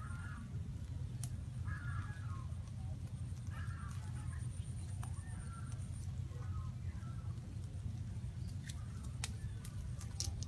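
A bird calling over and over, a short call about every one and a half to two seconds, over a steady low rumble, with a few sharp clicks.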